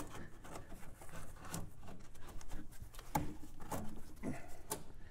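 Scattered light clicks, taps and scrapes of a new nickel-copper brake line being handled and fed down through a car's engine bay, the tubing knocking against parts as it goes.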